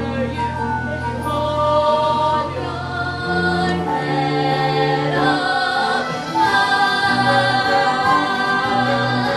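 Music: a choir singing held notes over a changing bass line.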